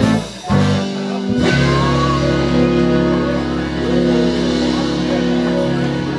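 Band music with guitar from a funk-soul line-up of guitars, Hammond organ, bass, drums and horns. After a short break just after the start, the band comes back in about a second and a half in on a long held chord.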